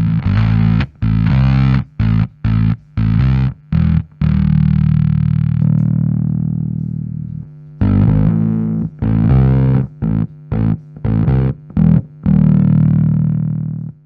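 Electric bass played through a Fender Blender fuzz pedal: a riff of short, choppy fuzzed notes, twice broken by a long note left to ring out and fade.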